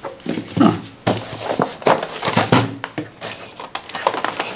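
Cardboard box and packaging being handled and opened: rustling and scraping with a string of light knocks and clacks.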